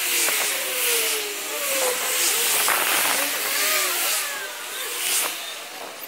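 A motor running, its pitch wandering up and down, under a loud rushing noise that swells and fades about once a second.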